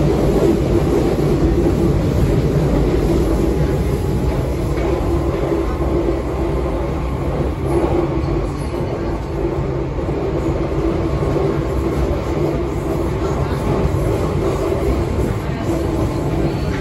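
MF77 Paris Métro train heard from inside the carriage while running along the line: a steady rumble of wheels on the rails, with a steady hum above it.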